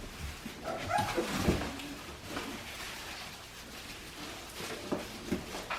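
Young Australian Shepherd puppies whining and yipping, a short cluster of high calls about a second in, then a few light clicks.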